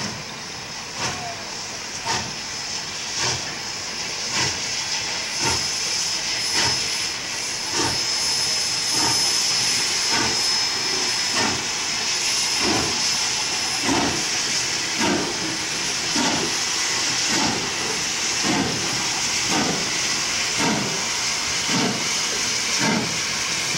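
AT&SF 3751, a 4-8-4 Northern steam locomotive, moving slowly under its own steam: a steady loud hiss of escaping steam with a slow, regular exhaust chuff about once a second.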